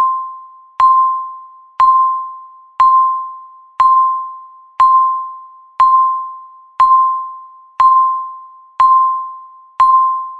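Countdown timer beeping once a second, each beep marking one second left: a single electronic tone that starts sharply and fades away over most of a second, about ten in a row.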